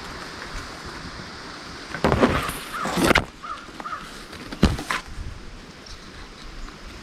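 Harsh, cawing bird calls, a loud run of them about two seconds in followed by a few shorter calls, and one sharp knock about a second and a half later.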